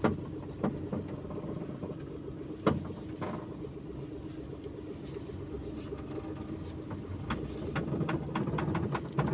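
Maruti Suzuki Alto engine idling with a steady hum while the steering is turned, with sharp cracking creaks from the front suspension: a few spaced clicks, then a quicker run of them near the end. The mechanic traces this crack to a broken rubber strut top mount that lets the shock ride up and its metal rub.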